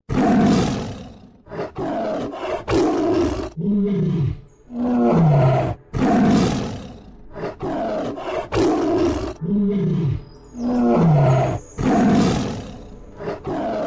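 Camel roaring and grumbling: harsh, rasping growls alternating with deep moaning calls that fall in pitch, the same sequence repeating about every six seconds.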